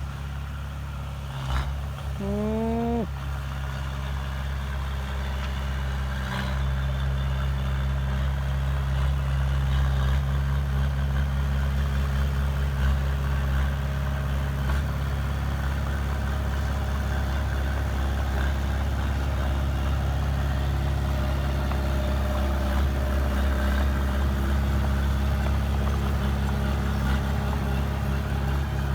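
Heavy diesel earthmoving machinery running steadily under load. A bulldozer or dump truck engine drones low and constant, a little louder after the first few seconds. A short rising pitched sound comes about two seconds in.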